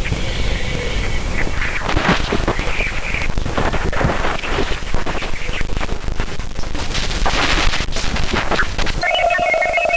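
Radio emissions recorded around Jupiter's moon Ganymede, shifted into audio: a dense hiss full of crackling static bursts. About nine seconds in it changes abruptly to a steady hum-like tone with chirping, beeping tones above it.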